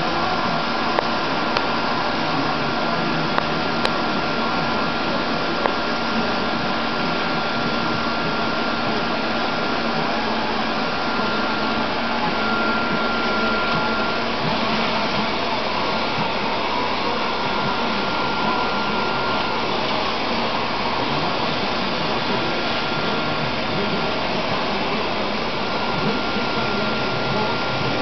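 Paint spraying rig running steadily as cupboard frames are spray-painted: a constant loud hiss with a steady high whine, and a few light clicks in the first seconds.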